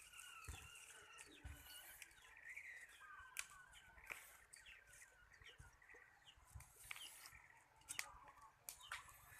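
Faint bird chirping, thin wavering calls repeated throughout, with scattered small clicks and taps.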